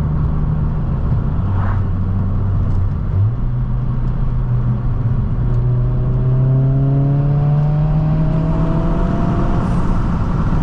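Turbocharged 1.5-litre four-cylinder engine and MAPerformance race exhaust of an 11th-gen Honda Civic Si, heard from inside the car while driving. A steady drone steps up in pitch about three seconds in, climbs slowly under acceleration, and drops back near the end.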